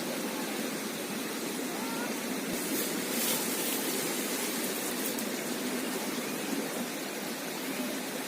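A river flowing, a steady, even rushing of water.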